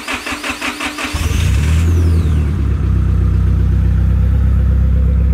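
Nissan Silvia S15's engine being remote-started: the starter cranks rapidly for about a second, then the engine catches and settles into a steady idle, with a brief high falling whistle about two seconds in. It is a little hard to start because the car runs on ethanol and is on a tune.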